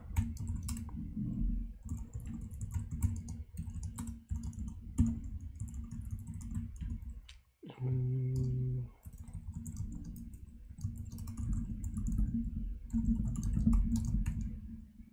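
Rapid, irregular typing on a computer keyboard, with the keystrokes coming through as dense clicks and low thuds. About eight seconds in, a steady hum-like tone lasts about a second.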